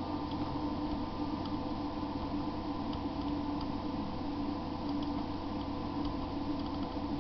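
Steady electrical and fan hum of a room with a computer running, with a few faint, scattered ticks.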